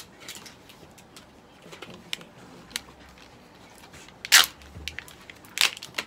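Paper and plastic medicine packaging being handled on a table: light taps and rustles, with two louder crinkles about four and five and a half seconds in.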